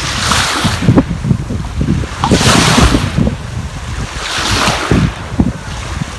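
Sea waves washing in three surges about two seconds apart, with wind buffeting the microphone throughout.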